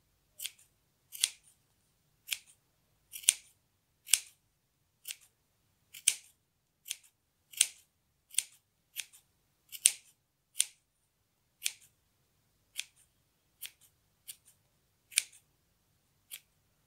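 Scissors snipping through yarn, trimming a small pompom to shape: about twenty short snips, roughly one a second, unevenly spaced.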